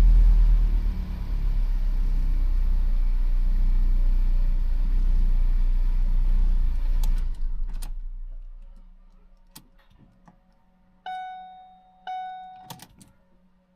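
2012 Ford Focus four-cylinder engine held at high revs in park, then falling away and winding down about seven seconds in. A few sharp clicks follow, and near the end two chime tones about a second apart, each fading out.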